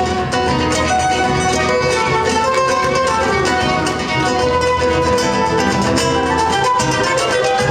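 Instrumental folk music with plucked strings and a bowed string instrument playing melody over a steady accompaniment.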